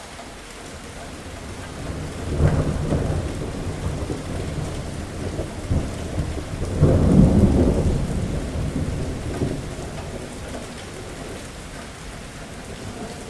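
Heavy rain falling steadily with two deep rolls of thunder, the first starting about two seconds in and the louder second about seven seconds in, fading away a few seconds later.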